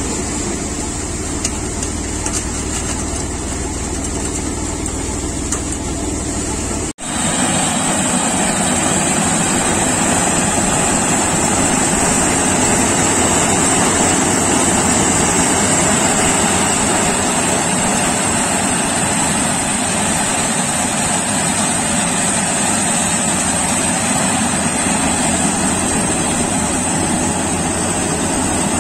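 Tractor-driven paddy thresher running steadily for about seven seconds. After a sudden cut, a Kartar 4000 combine harvester runs louder as it cuts paddy, with a steady high whine over its noise.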